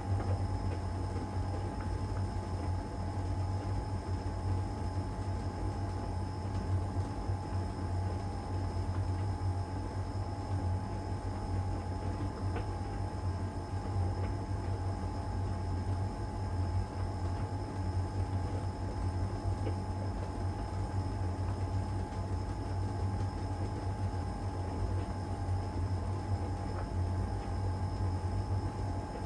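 LG heat pump tumble dryer running mid-cycle, the drum tumbling a load during the drying phase. A steady low hum with a constant whine over it.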